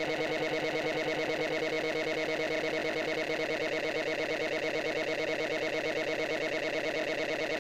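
Heavily effects-processed, distorted audio: a steady buzzing drone of several held tones, chopped by a fast, even pulsing throughout.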